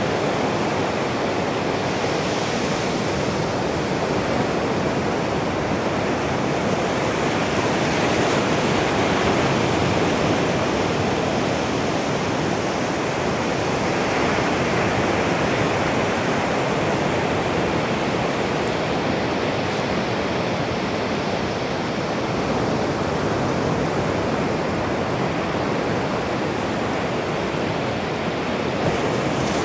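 Ocean waves breaking and washing up a sandy beach: a steady rush of surf.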